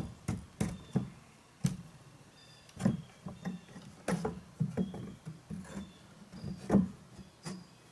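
Metal farm gates being handled and opened: a string of irregular knocks and clanks, some ringing briefly, the loudest a little over a second before the end.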